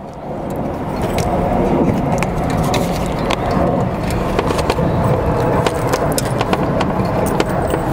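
A steady low rumbling noise, with light clicks and ticks as galvanized tie wire is handled and threaded through a flat concrete roof tile.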